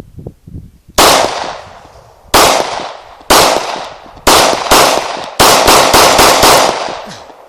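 Gunshots from a bump-fired Glock 17 9mm pistol: a few single shots about a second apart, then a rapid string of about five shots in quick succession about five and a half seconds in, each report followed by a long echoing tail.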